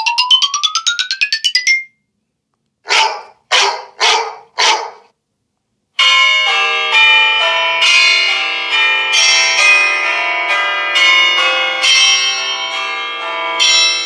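Three iPhone 13 Pro ringtones, one after another. First, a run of rapid beeps climbing in pitch that stops within the first two seconds. Then a tone of four short strikes about half a second apart. Then, from about six seconds in, a melodic ringtone of chiming, piano-like notes that fades out near the end.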